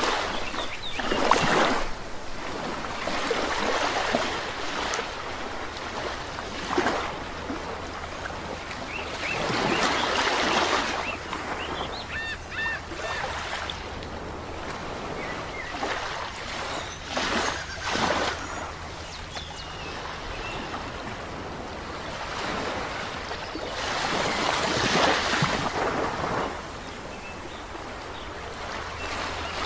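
Sea waves washing onto a shore, swelling and falling back every few seconds, with a few short bird chirps about twelve seconds in.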